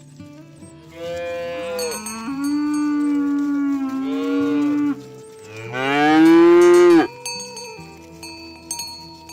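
Cattle mooing: one long low call that shifts pitch partway through, then a second, louder call that rises in pitch and cuts off suddenly.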